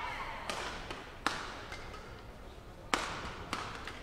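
Badminton rally: rackets striking the shuttlecock with sharp cracks, about four hits, two close together early on and two more near the end.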